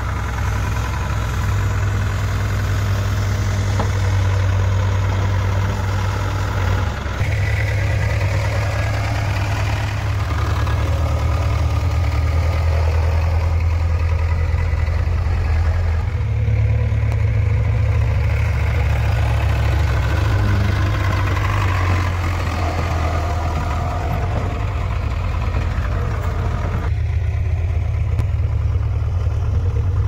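JCB 3DX backhoe loader's diesel engine running steadily as the machine works soil, a continuous low hum. The engine note shifts abruptly three times, about a quarter, halfway and near the end.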